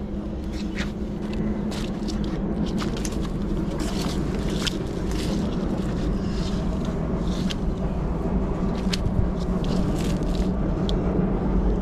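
Steady low engine rumble, growing slightly louder, with scattered sharp clicks and taps over it.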